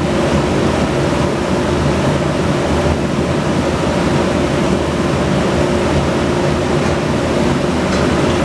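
Automatic-feed carbide circular saw for aluminium profiles running steadily, with a continuous machine hum carrying a few constant tones. No cut is heard.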